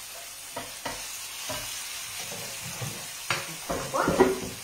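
Chopped eggplant flesh frying in oil in a frying pan, with a steady sizzle and a spoon scraping and clicking against the pan as it is stirred. A few louder knocks and clatter of utensils come near the end.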